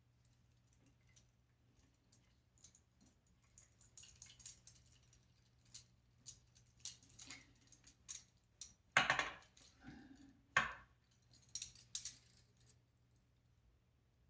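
Small robot-kit parts being handled and set down: scattered light clicks and clinks, with a few louder knocks a little past the middle, sparse at the start and near the end.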